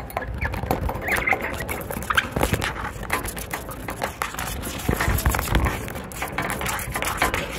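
Scratchy rustling and knocking of a phone being handled close up against a budgerigar cage, with a few short budgie chirps in the first couple of seconds.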